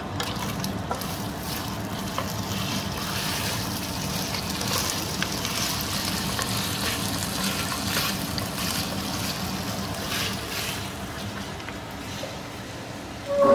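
Mutton pieces sizzling in hot oil in a pan, stirred with a wooden spatula, with a steady sizzle and crackle that grows stronger after a few seconds.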